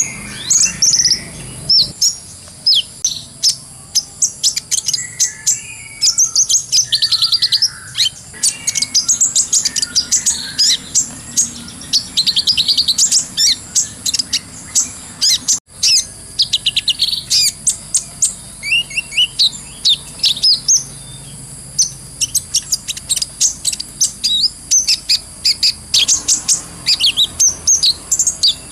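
Kolibri ninja sunbird singing a long, fast chattering song of high, sharp chirps and trills in rapid runs, with only brief pauses.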